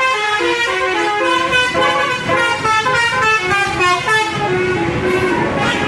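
Bus 'basuri' telolet musical horn playing a quick tune of stepped notes, then holding one note over engine and road noise from about four seconds in.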